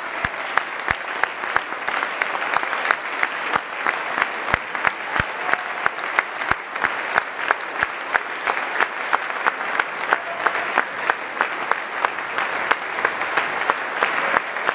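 Audience applauding, with clapping in unison at about three claps a second over the general applause.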